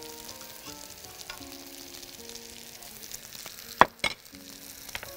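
Sliced onions sizzling as they fry in a frying pan on a gas hob, a steady crackling hiss, with quiet background music. Two sharp knocks about four seconds in.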